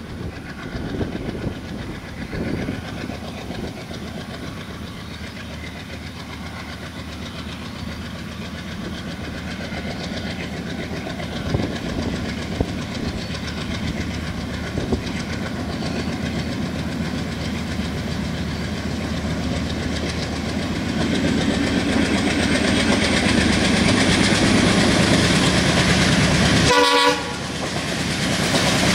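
ALCO diesel-electric locomotive hauling a passenger train, its diesel engine running under load as it approaches, getting steadily louder. Near the end the coaches' wheels click over the rail joints.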